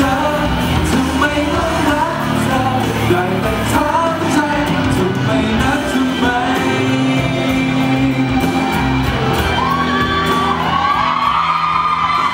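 Live Thai pop ballad: a backing track with a man singing into a handheld microphone, and shouts and whoops from the audience over it.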